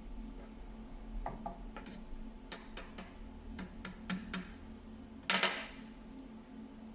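Light metallic clinks and taps, about a dozen over three seconds, from steel angle pieces being handled, then a short hissing burst of about half a second near the end. A steady low hum runs throughout.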